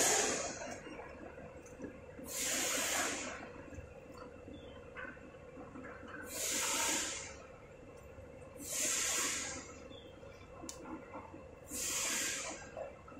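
Stacks of paper being slid across the steel table of a hydraulic paper-cutting guillotine: short hissing swishes about a second long, every two to four seconds, over the steady hum of the machine running.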